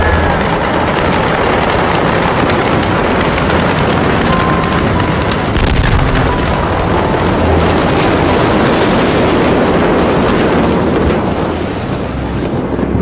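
Close-range explosion at a burning warehouse: loud, continuous crackling and popping with a deeper rumbling surge about six seconds in, easing off near the end.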